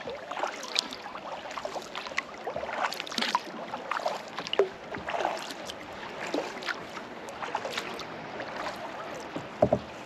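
Sea kayak paddling: paddle blades dipping and splashing, with water dripping off them in short irregular strokes over a steady wash of water. Two sharper knocks come near the end.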